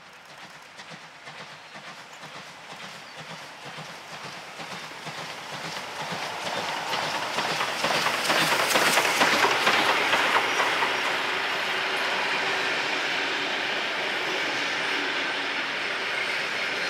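Victorian Railways D3-class 4-6-0 steam locomotive 639 approaches under heavy exhaust, its chuffing beats growing steadily louder until it passes, loudest about halfway through. Its train of carriages then rolls by with wheels clicking over the rail joints.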